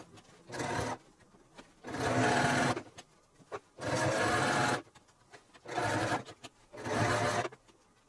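Domestic sewing machine stitching through layered fabric in about five short runs of half a second to a second each, stopping and starting between them as the fabric is guided.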